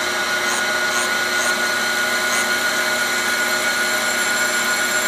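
Cylindrical grinder running, its wheel grinding a shaft between dead centers at a fine infeed of a tenth of a thousandth: a steady whine with a constant hum and hiss and a few faint high ticks.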